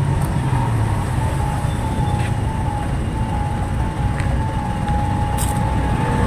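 Truck engine running close by over road traffic noise, a steady low rumble with a faint whine that sinks slightly in pitch. A few light clicks sound above it.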